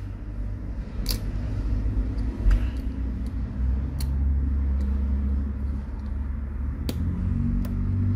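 A steady low rumble throughout, growing a little louder after a few seconds, with four sharp clicks as the plastic mainboard shield carrying the NFC coil is pressed down into a smartphone's frame.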